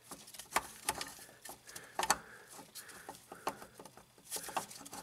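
Scattered light clicks and knocks of a new concentric clutch slave cylinder being handled, slid onto the transmission input shaft and seated against the case by hand. The loudest knocks come about two seconds in.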